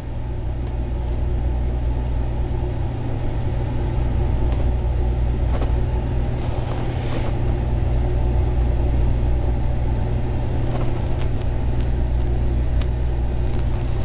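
A steady low hum or rumble, unchanging throughout, with a few faint clicks scattered over it.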